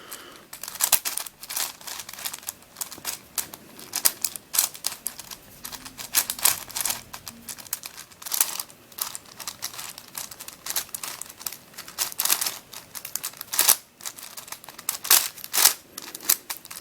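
Plastic layers of a Witeden 4x4x4 Mixup Plus twisty puzzle being turned quickly by hand, an irregular run of clicks and scrapes, several a second, as it is scrambled with 3x3x3 moves.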